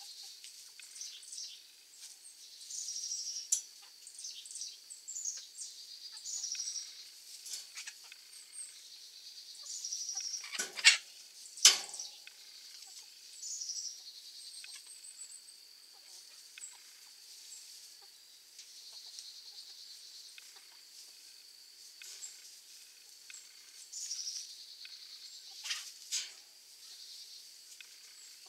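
A flock of chickens foraging, with many short, high calls and clucks scattered throughout. There are two sharper, louder calls about eleven seconds in and two more near the end. A steady high-pitched tone runs underneath.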